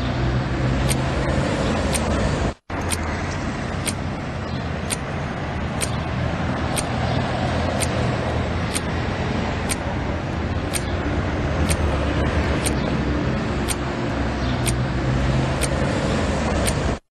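A clock ticking about once a second, faint and high, over a steady rushing, rumbling noise. The sound cuts out for an instant about two and a half seconds in, then goes on and stops abruptly near the end.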